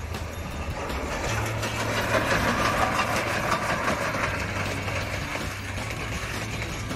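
Steam locomotive and its carriages passing close by on the track: a rush of clattering train noise that swells to its loudest two to three seconds in, then eases off.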